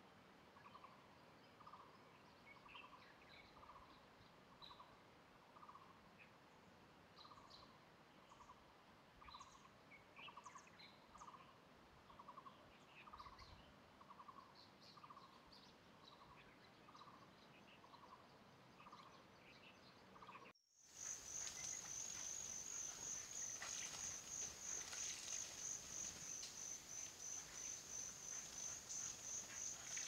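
Faint outdoor ambience of birds and insects. A soft pulsed note repeats every half second or so under scattered short bird chirps. After a cut about two-thirds of the way through, a louder high insect trill pulses several times a second with more chirps over it.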